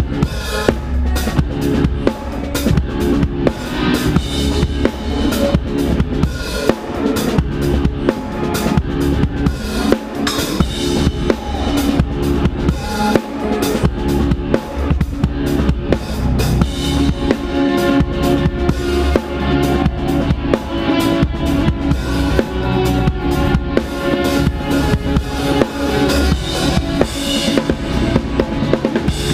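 Rock drum kit played live from the drummer's seat, with dense, frenetic kick drum, snare and cymbal hits over the rest of the band playing loudly.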